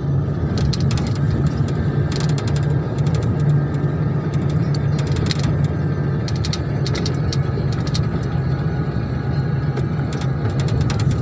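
Steady engine and road noise of a moving open-sided jeep heard from inside, with many short rattling clicks from the vehicle body.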